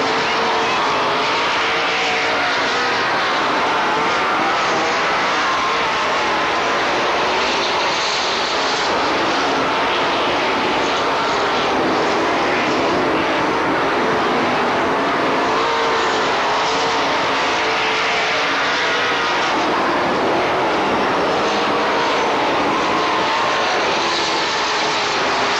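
A field of race car engines running at speed around a short oval track, a dense, steady engine noise whose pitch rises and falls again and again as the cars come past and go away.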